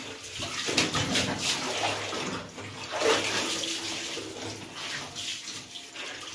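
Soapy water sloshing and splashing in a tub as wet clothes are lifted, squeezed and worked by hand, in irregular surges.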